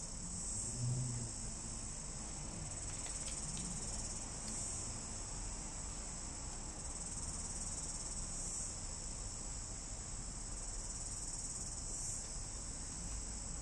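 A steady, high-pitched chorus of insects chirring, swelling slightly every few seconds.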